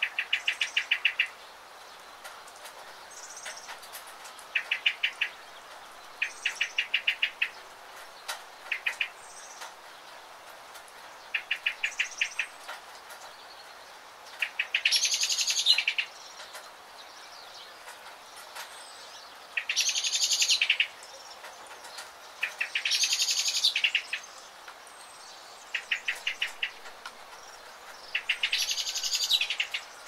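Songbirds calling again and again over a steady patter of light rain. Short runs of rapid high chirps alternate with four longer, louder buzzy trills in the second half.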